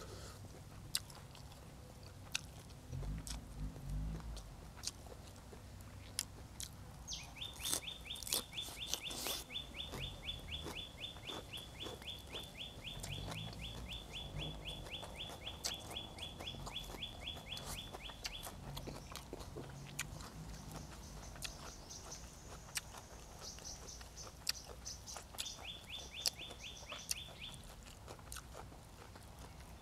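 Close-up chewing and crunching of spicy stir-fried frogs, with scattered sharp crunches. A high, fast, evenly pulsed chirping sounds from about a quarter of the way in until past the middle, and returns briefly near the end.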